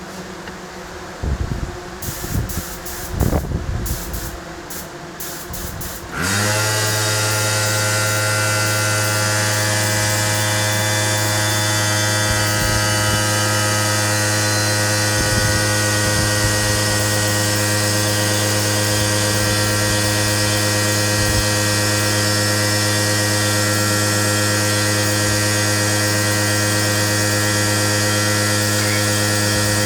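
A paint spray gun hissing in several short bursts. About six seconds in, an air compressor's electric motor kicks on, climbs quickly in pitch and settles into a loud, steady hum.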